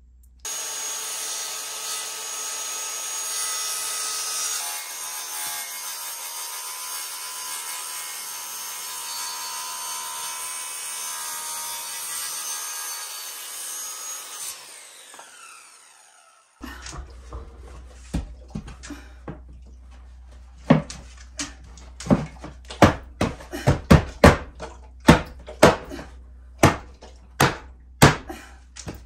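A Ryobi circular saw runs steadily through a wood board for about fourteen seconds, then winds down with falling pitch. After a short pause, a string of sharp wooden knocks follows as the pine boards are pressed and tapped into place on the wall.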